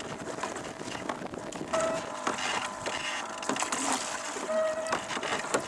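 Oars creaking and knocking in the rowlocks of a rowing boat being rowed. A squeak comes twice, about three seconds apart, with several short knocks between.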